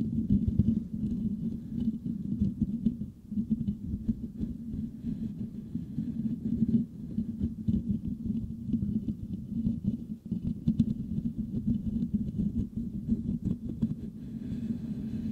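Fingertips scratching and rubbing the metal mesh grille of a Blue Yeti microphone, picked up by that same microphone. The result is a dense, continuous crackling scratch, deep and muffled, with brief lulls about three and ten seconds in.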